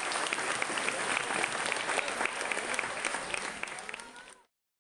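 Audience applauding, with dense clapping that fades near the end and then cuts off suddenly.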